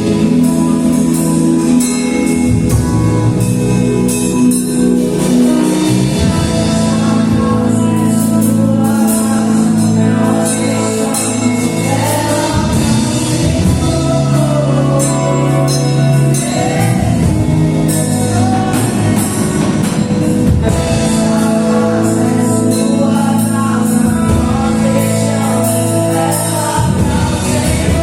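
Gospel worship song: a band holds long sustained chords while a voice sings over them, the singing clearest from about halfway through.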